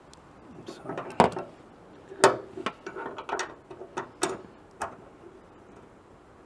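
Hand ratchet wrench working the front hood-hinge bolt out: a run of irregular metal clicks and clinks, loudest about one and two seconds in, ending about five seconds in.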